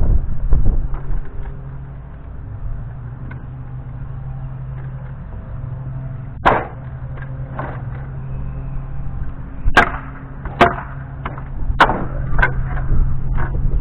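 Wooden pallet being broken apart: sharp knocks and cracks of wood, one about halfway through and a quick run of them near the end, over a steady low hum.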